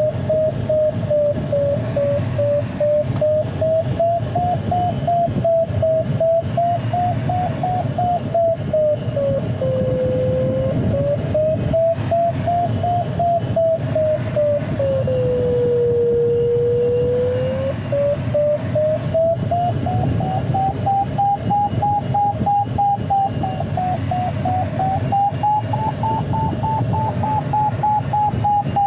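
Glider audio variometer giving one continuous tone that slowly wavers up and down in pitch as the lift changes, lowest about halfway through and highest near the end. Steady airflow rush around the ASK 21's cockpit lies underneath.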